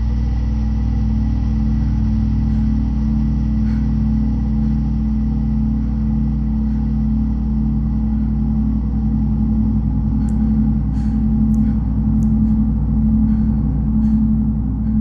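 Loud, dark ambient drone: a steady low rumble with a fast throbbing pulse, swelling slightly toward the end, with a few faint clicks in the second half.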